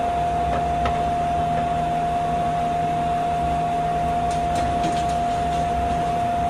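Interior running sound of an Astram Line 6000-series rubber-tyred automated guideway train: a steady low rumble under one steady high-pitched whine.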